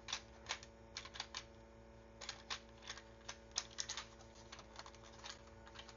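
Plastic toy parts clicking and tapping in scattered bursts as pegs on the DK-54 upgrade kit are pushed into the holes on the Optimus Prime figure.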